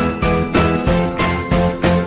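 Background music with a steady beat, about three a second, under a high pitched melody.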